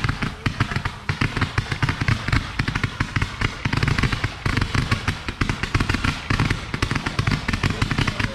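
Fireworks going off in rapid, dense succession: a continuous crackle of many small reports, several every second, with heavier bangs among them.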